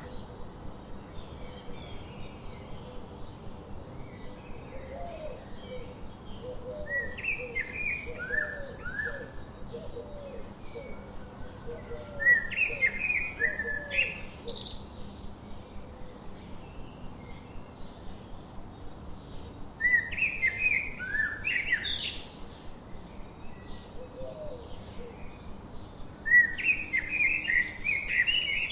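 A songbird singing loud phrases of quick sweeping whistled notes, one phrase every five to seven seconds. A second, lower-pitched bird calls in a run of short repeated notes in the first third and briefly again later. A steady, fast, even pulsing goes on underneath.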